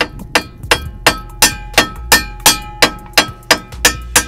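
Hammer striking a screwdriver held against a rusted half-moon retaining clip on a driveshaft U-joint, steady blows about three a second, each with a ringing metallic clang. The blows are to drive the seized clip off the joint.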